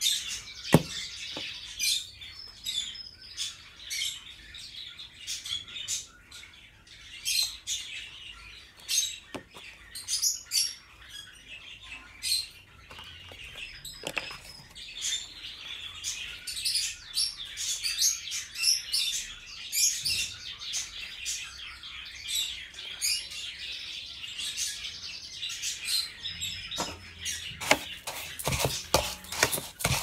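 Small songbirds chirping over and over with short, sharp high calls. Underneath is the dry rattle of a seed-and-pâté mix being shaken into and stirred in a metal bowl, busiest near the start and in the last few seconds.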